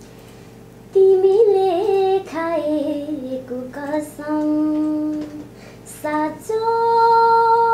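A young woman singing a slow Nepali adhunik (modern) song solo, coming in about a second in, with long held notes.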